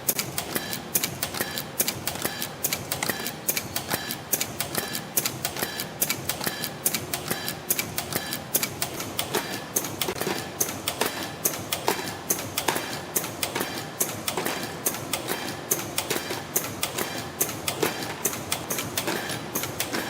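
YHM EF-210A CNC extension spring machine running in production, coiling 0.9 mm wire into extension springs and forming English hooks: a continuous rapid clatter of clicks with a short high note repeating at a regular pace.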